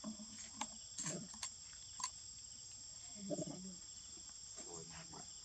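Steady high-pitched insect chorus of crickets or cicadas, with a few light ticks and brief low sounds over it.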